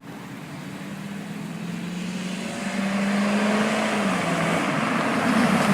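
A car engine running, growing steadily louder over the first few seconds, its hum dropping in pitch about four seconds in.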